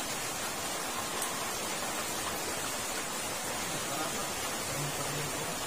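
Steady rush of water flowing through a drainage culvert below a grate.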